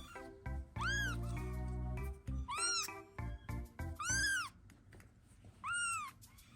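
Ragdoll kitten meowing four times, high-pitched calls that each rise and fall in pitch, over background music.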